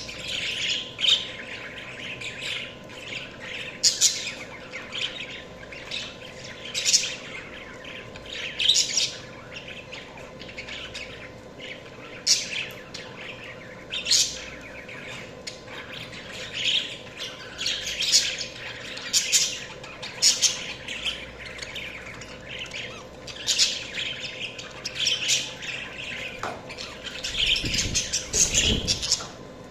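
Budgerigars chattering, a run of soft warbling calls broken by sharp, loud chirps every second or two.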